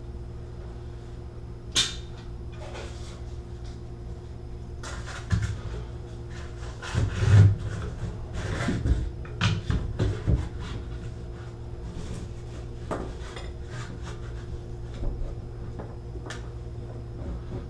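Pliers and a protective pad being handled and set on a metal bathtub spout: scattered clicks, knocks and rustles, busiest in the middle with the loudest knock about seven seconds in, over a steady low hum.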